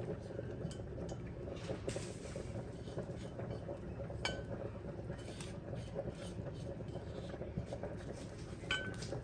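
Kitchen utensil and cookware clinking as cooked eggs are moved out of the frying pan: a few sharp clinks with a short ring, about four seconds in and twice near the end, over a steady low kitchen hum.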